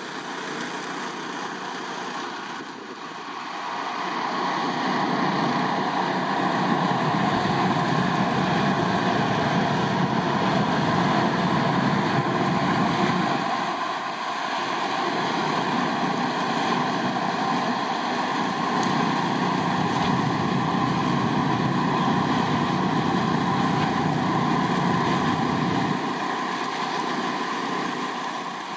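Freight train running past on the Tohoku Main Line, a steady rolling rumble of wheels on rails that eases off and swells again a couple of times.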